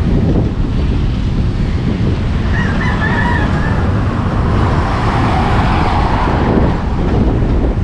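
Wind buffeting the microphone, with a rooster crowing about three seconds in.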